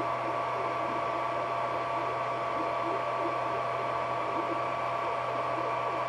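Ender 3D printer running mid-print: a steady whir of its fans with a constant high tone, and a faint patter of short shifting notes from its stepper motors underneath.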